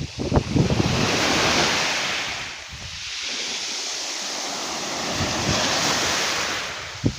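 Black Sea surf: waves breaking and washing up the shore in two surges a few seconds apart. Wind buffets the microphone near the start.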